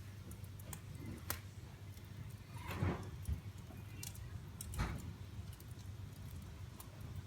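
Wood fire burning in a fireplace: a low steady rumble with a few sharp, scattered pops and crackles as the wood bursts, the loudest about three and five seconds in.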